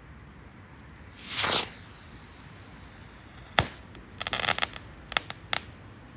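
Fireworks: a whoosh falling in pitch about a second in, then a sharp bang, a quick run of crackling reports and three more bangs near the end.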